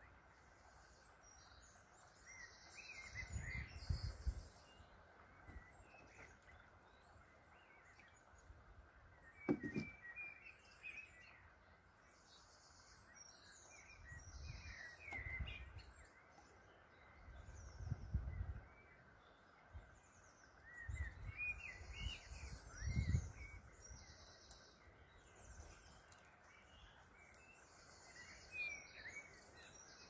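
Small songbirds chirping and singing on and off, with several bursts of low rumbling and a single brief knock about a third of the way in.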